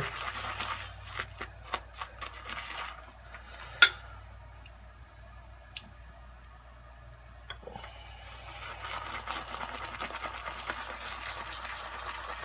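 Shaving brush working soap lather in a bowl: scattered wet clicks, a sharp knock about four seconds in, a quieter stretch, then steady swishing from about eight seconds as the brush is worked round the bowl again.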